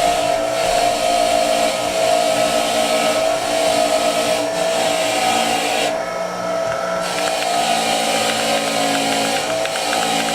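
Electric buffer running at speed: a steady motor whine with a hissing whir from the spinning wheel, the hiss shifting slightly in places as the work is pressed to it.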